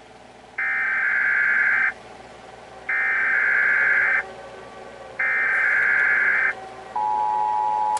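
Emergency Alert System SAME header: three harsh buzzing data bursts, each about a second and a half long and about a second apart. Near the end the two-tone EAS attention signal begins, announcing a new alert.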